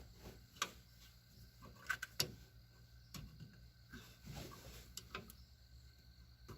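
Scattered sharp clicks and light knocks of hand tools and mounting hardware as master cylinder bolts are fitted and tightened, loudest about two seconds in.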